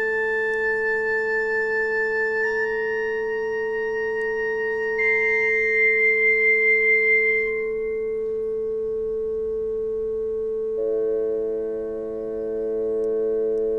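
Yamaha PSR-E263 portable keyboard playing a slow tune in long held notes: three melody notes step upward over a steady held lower note, some of them wavering, then a fuller chord comes in near the end.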